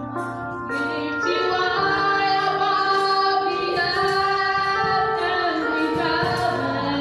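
Music with a woman singing long, held notes over a sustained accompaniment.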